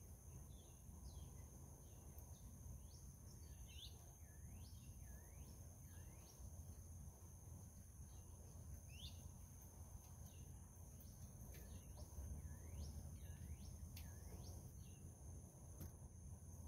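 Faint outdoor ambience: insects singing in a steady high drone, with birds giving short downward-slurred calls every second or so over a low rumble.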